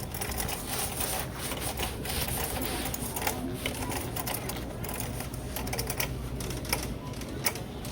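Shopping cart rattling as it is pushed along a store floor: a fast, irregular clatter of clicks and knocks, with a store's background murmur of voices.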